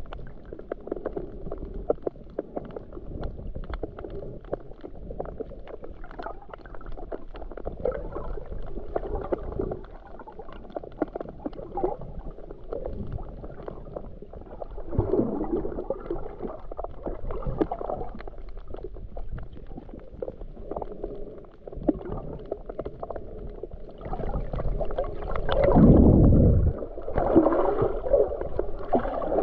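Underwater sound heard through a GoPro's waterproof housing while snorkeling: a muffled rumble of moving water with scattered faint clicks and crackles. It swells into louder gurgling surges about halfway and again near the end.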